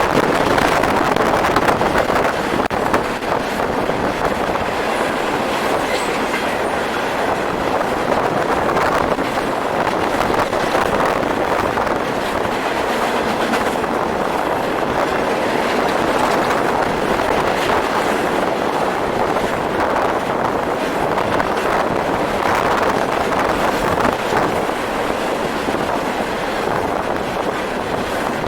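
A long train of empty steel coal hoppers rolling past, a steady clatter of wheels over the rails with repeated wheel clicks. Wind noise on the microphone runs under it.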